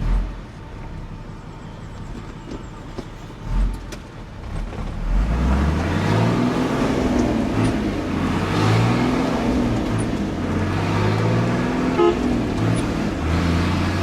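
A truck engine pulling away and accelerating through several gears, its pitch rising with each gear and dropping back at each shift, then running steadily. Two dull thumps come in the first few seconds, before it speeds up.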